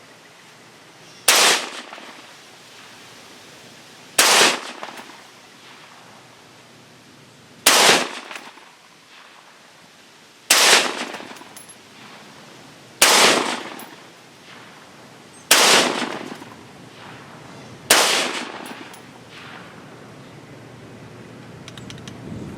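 AR-15 rifle with a .223 Wylde upper firing seven single shots of 5.56 ammunition, one every two and a half to three and a half seconds, each shot followed by a trailing echo. The magazine runs empty with the last shot.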